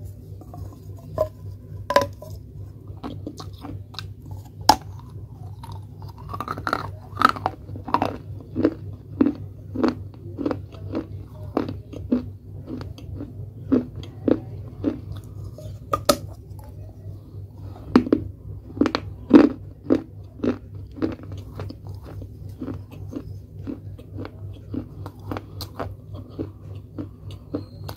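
Baked clay pot being bitten and chewed close to the microphone: sharp, dry crunches with chewing between them. Single loud bites come a few seconds apart, and through the middle a steady run of about two crunches a second.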